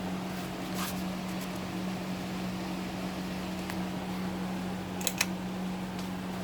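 2001 Hampton Bay Carriage House 52-inch five-blade ceiling fan running, its motor giving a steady hum. Two sharp clicks come a little after five seconds in.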